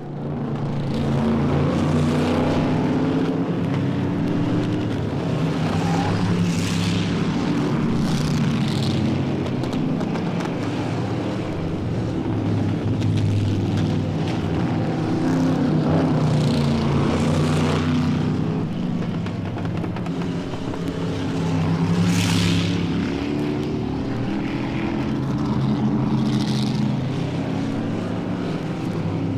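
Engine drone starting abruptly and running steadily, its pitch wavering slightly, with brief hissing surges several times.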